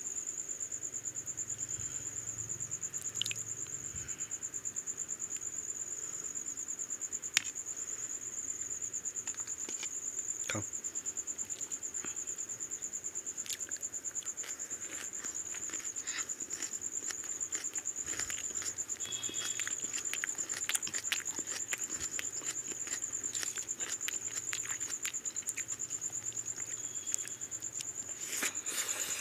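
Hand-eating sounds of rice and mutton curry: fingers mixing rice on a plate, chewing and lip smacks, heard as short sharp clicks that grow busier in the second half. A steady high-pitched trill runs underneath.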